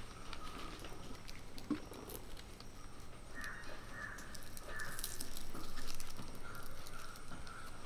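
Banana leaf crinkling and rustling as a packet is folded and tied with a dry plant-fibre string, with many small scratchy clicks.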